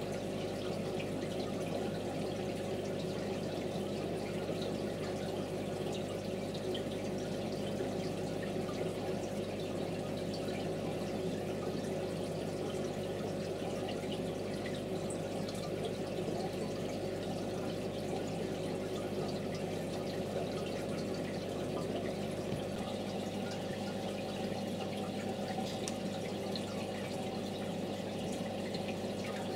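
Aquarium equipment running: a steady electrical hum with water trickling and dripping.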